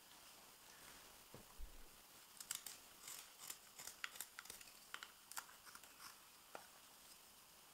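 Hans Karlsson spoon knife (hook knife) slicing shavings from the bowl of a fresh maple spoon: an irregular run of short, crisp cuts, starting about a second in.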